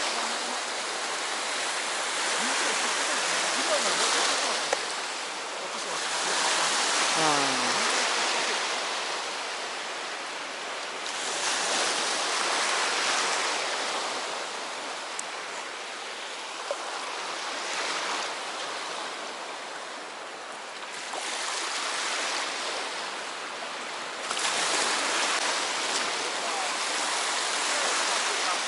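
Sea surf washing onto the shore, a steady rush that swells and fades with each wave every few seconds.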